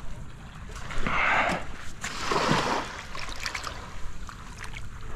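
Shallow seawater washing and splashing in two swells about a second apart, with a few faint clicks.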